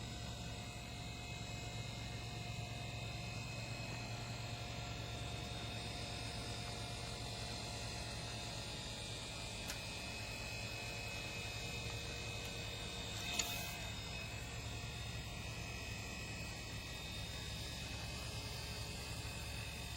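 Battery-powered handheld pool vacuum's electric motor running steadily with a hum and buzz, with one short click about 13 seconds in.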